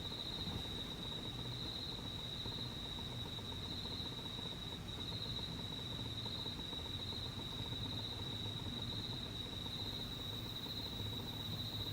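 Crickets calling at night: a steady, unbroken high-pitched trill, over faint low background rumble.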